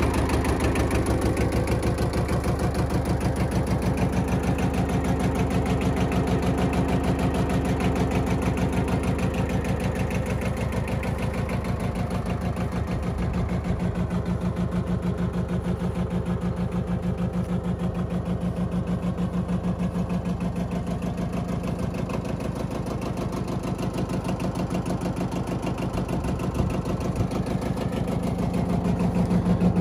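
Yanmar YM2210 compact tractor's diesel engine idling steadily, with a quick, even run of firing pulses; it gets a little quieter midway and louder again near the end.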